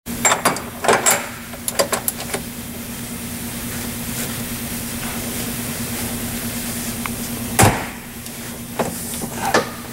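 Open-end wrench clinking against the jam nut and bolt on top of a boat's aft engine mount: a cluster of sharp metal clicks in the first couple of seconds and a few more near the end, with one louder knock about seven and a half seconds in. A steady low hum runs underneath.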